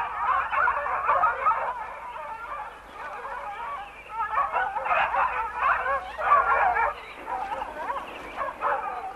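A pack of hunting hounds baying and yelping together in full cry while chasing. Many voices overlap, easing off for a moment a few seconds in and then picking up again.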